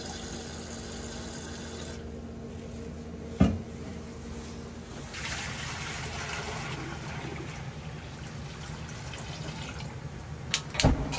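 Running water in a kitchen, with a sharp knock about three and a half seconds in and a few clicks near the end.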